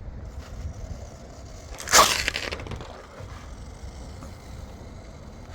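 Floatwheel ADV one-wheeled electric board with an ADV2 kit giving a single loud, harsh burst about two seconds in that fades over about half a second, over a steady low rumble: the unexplained noise the board makes under a hard stop or slide.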